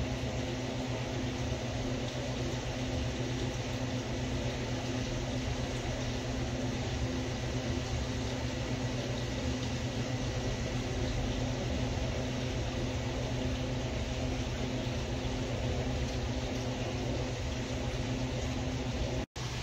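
Steady hum and hiss of aquarium equipment (filters and air pumps) running, a low machine hum with a faint higher whine over it. The sound drops out for an instant just before the end.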